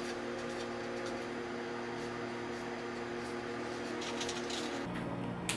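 Faint scratching of a pen writing on a paper sign, over a steady low hum. The scratching is strongest about four seconds in, the hum shifts lower shortly after, and a single click comes near the end.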